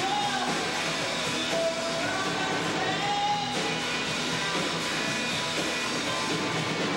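Live rock band playing: drums, electric guitars and bass at full volume, with a few held, slightly bending lead notes.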